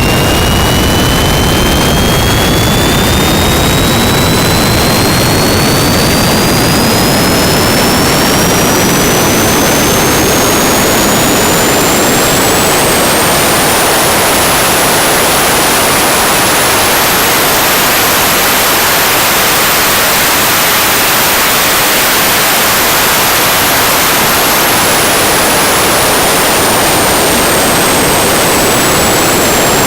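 Jet engine running loud and steady. Its high turbine whine climbs in pitch through the first two-thirds, levels off, then falls again toward the end.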